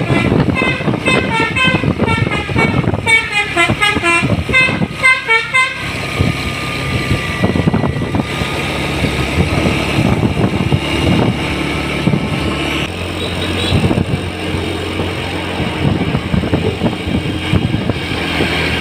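Bus Basuri telolet horn playing a quick tune of short, rapidly changing notes for about six seconds, then the bus's engine running with road noise.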